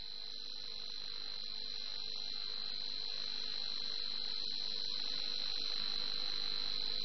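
Air-traffic-control radio feed between transmissions: a steady high whistle over faint hiss, slowly growing louder.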